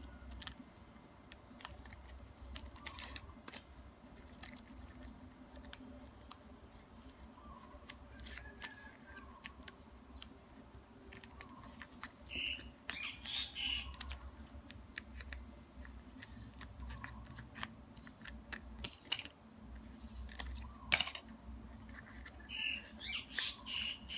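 Ribbon strips crinkling and clicking under the fingers as they are tucked through the weave and pulled tight, in scattered short bursts with a few sharp clicks.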